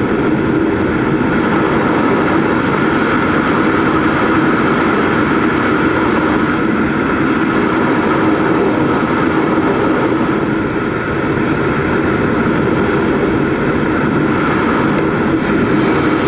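Steady drone of a large radio-controlled model airplane's engine and propeller, heard close up from onboard with wind rush over it; the level dips slightly about eleven seconds in.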